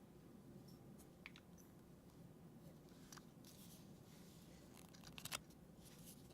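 Near silence: faint room tone with a few soft clicks and rustles, the loudest about five seconds in.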